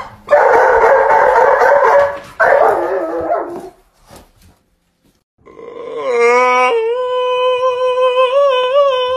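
Dogs howling: two long, rough howling cries, the second sliding down in pitch, then after a short pause a long held high howl with a wavering pitch begins about six seconds in.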